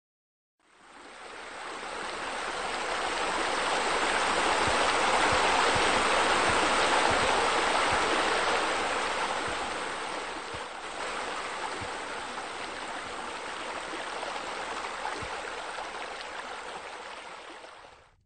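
Steady rush of running, splashing water that fades in, swells, eases off partway through and fades out near the end.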